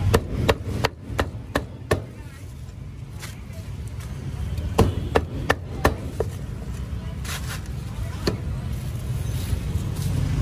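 A cleaver chopping cooked meat on a wooden chopping board: sharp chops at about three a second in two runs, with a single chop near the end.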